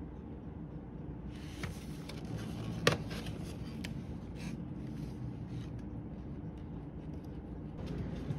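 A paperboard cupcake box being folded shut by hand: paper rubbing and scraping with a few small clicks and one sharp snap about three seconds in, over a low steady hum.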